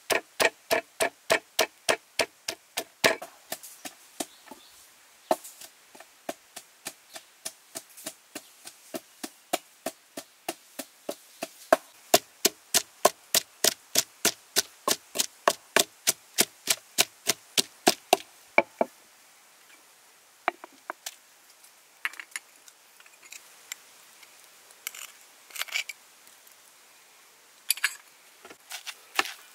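Pestle pounding red chillies and garlic in a wooden mortar: steady thuds at about three strokes a second, crushing them to a coarse paste. A little past halfway the pounding stops, leaving only a few scattered knocks.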